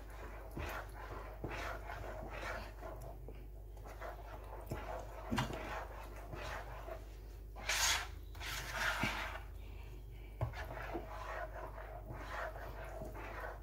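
A metal spoon stirring melted butter into thick sweet potato pudding batter in a plastic bowl: a run of short scraping strokes, with two louder stretches a little past the middle.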